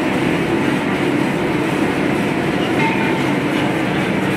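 Commercial stirring mixer running steadily, its metal arms churning a thick cashew dough in a stainless-steel bowl: a continuous, even machine noise with a low hum.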